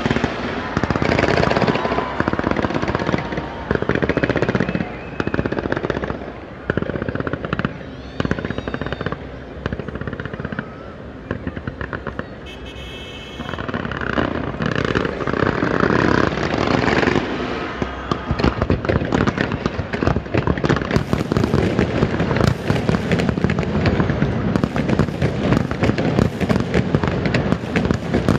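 Fireworks display: volleys of bangs and crackle in clustered bursts, merging into a near-continuous crackling barrage from about two-thirds of the way through.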